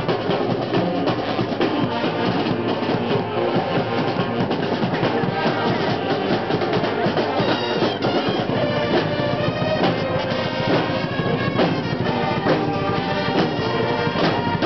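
Marching band playing live, with drums and brass.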